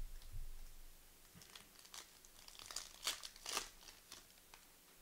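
Trading-card pack wrapper crinkling and tearing as a pack is opened, in a string of short crackles, after a soft low thump at the start.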